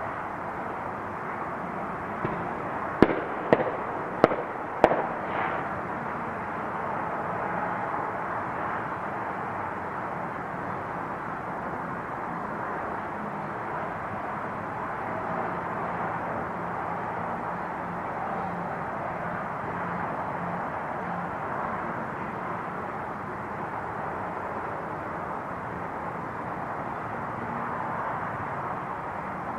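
Fireworks going off: a small pop, then four sharp bangs about half a second apart, starting about three seconds in. A steady wash of outdoor background noise continues after them.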